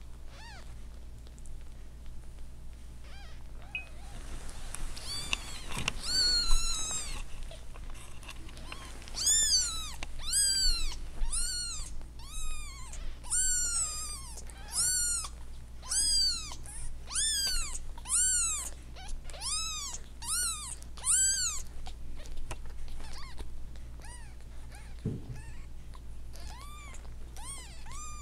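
Newborn kittens mewing: a long run of short, high-pitched mews, about one or two a second, each rising and falling in pitch. The mews start about five seconds in and thin out to a few near the end.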